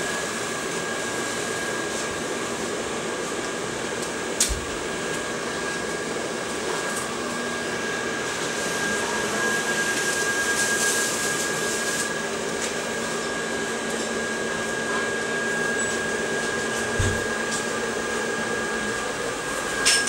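Steady whirr of an electric blower motor with a thin high whine, unbroken throughout, with a sharp knock about four seconds in and another near the end.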